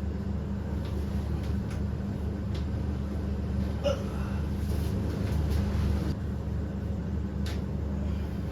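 Chiropractic joint cracks: a few short sharp clicks as the patient's joints are manipulated. The loudest, about four seconds in, comes with a brief gasp-like catch of breath, and another follows near the end, over a steady low hum.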